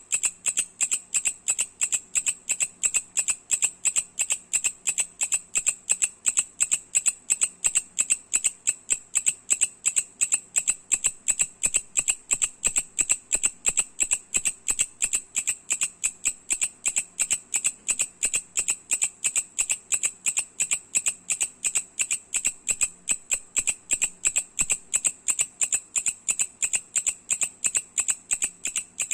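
Mecopoda katydid (bush cricket) calling: a steady, rapid train of sharp, loud ticks, about three to four a second.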